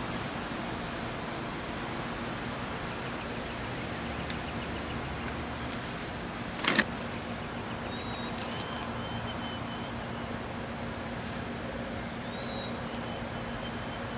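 Steady outdoor background noise with a low, even hum, broken once by a single sharp click or knock a little past halfway. Faint high-pitched chirps come and go in the second half.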